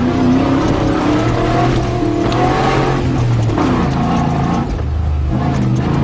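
Off-road 4x4 competition vehicle's engine running and revving up and down as it drives over a rough bush track, heard from inside the cab, with short knocks and rattles from the vehicle over the bumps.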